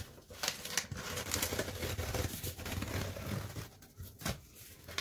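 Scissors cutting through packing tape on a cardboard box, with tape tearing and the cardboard flaps rustling as they are pulled open. A sharp click near the end.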